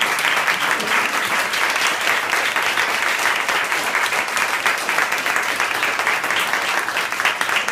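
Small audience applauding, many hands clapping steadily without a break.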